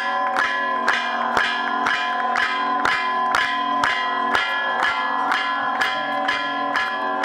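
Temple bells rung continuously in a fast, steady rhythm, about two strong strokes a second with lighter ones in between, their tones overlapping into a constant clangour, as at an aarti with flaming lamps.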